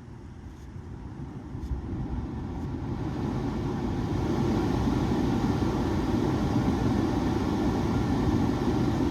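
2013 Volkswagen Tiguan's climate-control blower fan, a steady rush of air that rises over about four seconds and then holds. The fan speed control switch is still faulty: it behaves exactly as before.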